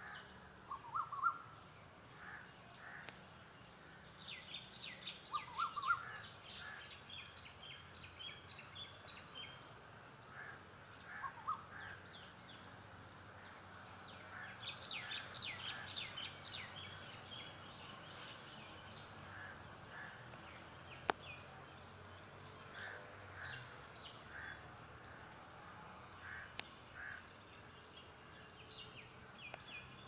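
Morning birds calling over a faint steady background: bursts of rapid high chirping, densest about four seconds in and again around the middle, with a few short lower calls in between.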